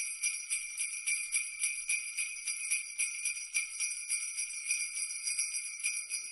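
Jingle bells shaken in a steady rhythm, several shakes a second, with a bright ringing that keeps on between the shakes.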